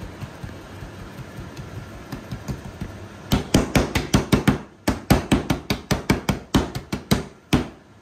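Hands slapping and patting pizza dough flat against a countertop: softer pats at first, then from about three seconds in a fast run of sharp slaps, about five a second, with a brief pause partway through, stopping just before the end.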